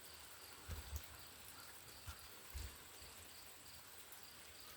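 Faint outdoor quiet with an insect chirping in a steady rhythm of short, high pulses. A few soft low bumps, like handling of the microphone.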